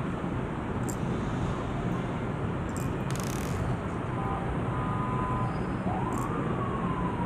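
A few faint clicks of steel BBs being pressed one at a time into a BB pistol's metal stick magazine, over a steady background rumble. Near the end a faint high tone rises briefly, then slowly falls.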